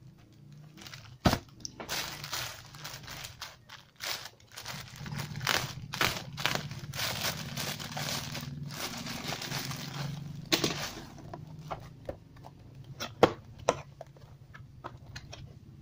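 Plastic courier pouch crinkling and tearing as a parcel is cut open with a box cutter and unwrapped, with a few sharp clicks and knocks among the rustling, which thins out near the end as the cardboard box inside is handled.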